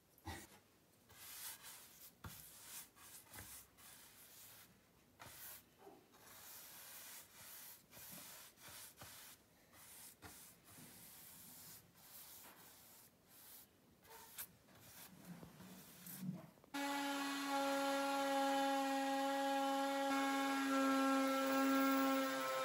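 Scraping and rubbing of hand work at a tiled wall and with wooden boards, in irregular strokes. About three-quarters of the way through, an electric power tool starts and runs with a loud, steady whine.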